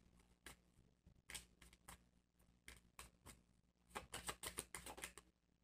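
Faint sound of a deck of tarot cards being shuffled by hand: scattered soft card clicks, then a quick flurry of card flicks about four seconds in.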